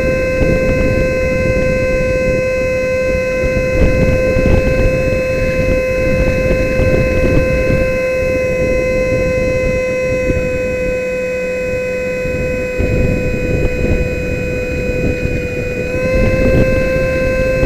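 64 mm brushless electric ducted fan of an RC jet running at steady high throttle, a constant high whine with rushing wind noise underneath, heard from on board the model. Near the end the whine dips slightly in pitch and comes back up.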